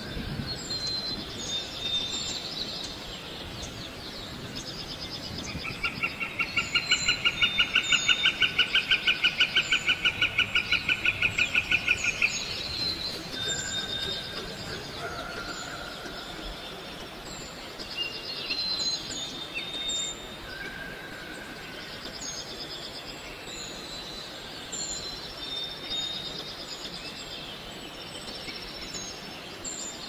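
Many birds chirping and calling, with short high chirps and whistled notes repeating throughout. A loud, rapid pulsed trill stands out from about six to twelve seconds in.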